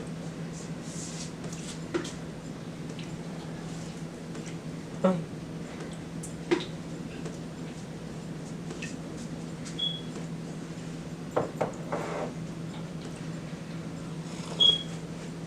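Kitchen clatter: scattered clinks and knocks of dishes and utensils over a steady low hum, with two short high pings about ten and fourteen seconds in.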